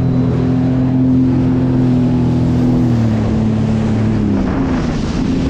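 Jet ski engine running at speed over choppy water, a steady drone with wind and water rushing past. Its pitch dips slightly about three seconds in as the throttle eases.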